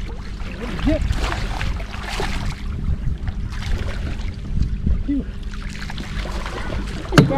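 Water splashing and sloshing beside a boat as a hooked fish thrashes at the surface, over a steady low hum. A single sharp knock sounds near the end.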